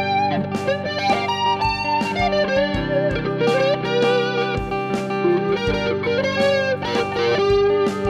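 Electric guitar lead line of single notes with string bends and vibrato, played through a Boss DS-1 distortion and a Twinote BBD Chorus pedal, over a looped guitar part holding low notes. The chorus is switched on within the first few seconds.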